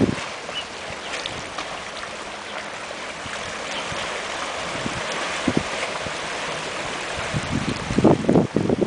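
Steady outdoor rushing of wind, with gusts buffeting the microphone near the end.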